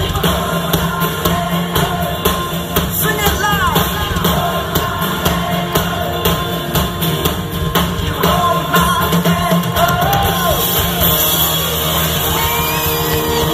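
Live Christian rock band playing with amplified lead singing, heard over a PA from amid the audience.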